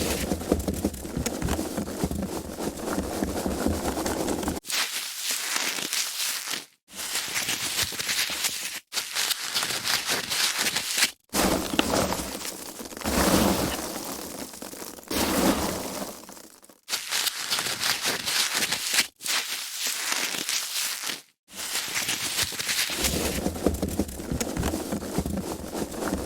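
Foam packaging being handled: crinkling, crackling rubbing and crushing in a run of separate takes, each a few seconds long, with short breaks between them.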